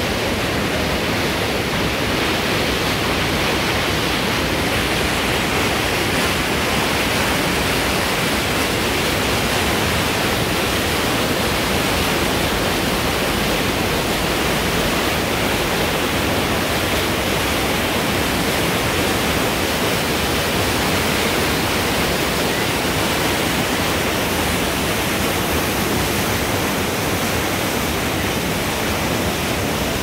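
Fast mountain river running over rocks in white-water rapids: a steady, loud rush of water.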